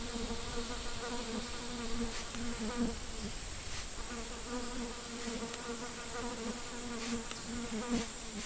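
Flying insect buzzing: a wavering wingbeat hum that drops out for a moment about three seconds in and then comes back, over a thin steady high tone.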